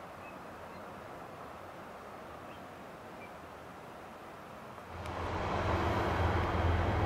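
Faint steady outdoor noise, then about five seconds in an abrupt cut to a CN freight train's diesel locomotives running, with a steady low engine hum under a broad rumble.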